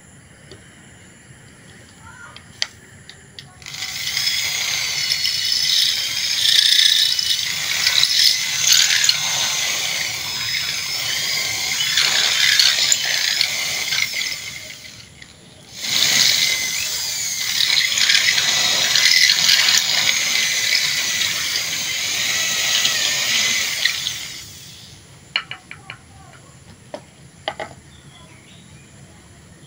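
Electric hand drill boring into a duralumin (aluminium-alloy) machete handle, the bit squealing as it cuts, enlarging the handle's tang hole so the long tang will fit. It runs in two long stretches of about ten seconds each with a brief stop between, then a few light clicks near the end.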